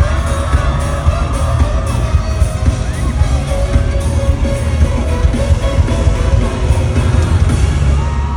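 Pop song with singing and a heavy bass beat, played loud through a concert hall's sound system, with fans yelling and cheering over it.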